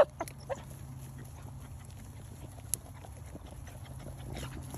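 Beagles pushing through dry grass and brush on a rabbit track after their baying stops: faint rustling and scattered twig ticks, with one short, faint bay about half a second in.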